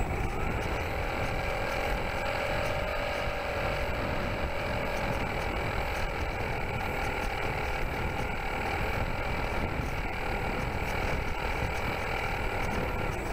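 FPV model aircraft's motor and propeller running at a steady whine, heard from the onboard camera, with wind rumble on the microphone.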